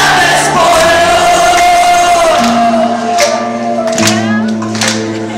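Live rock band playing a passage between sung lines: a long held, slightly wavering note over bass notes that change every second or so, with the crowd's voices in the mix and a few sharp hits in the second half.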